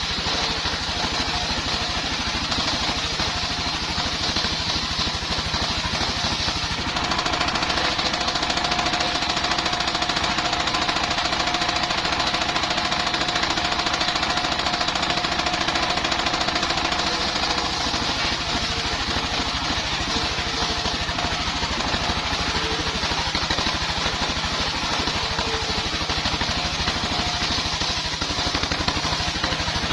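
Engine-driven mobile circular sawmill running steadily while sawing bayur wood into beams, with a fast knocking engine beat under the saw. About seven seconds in, the pitch of the running sound shifts and then holds steady.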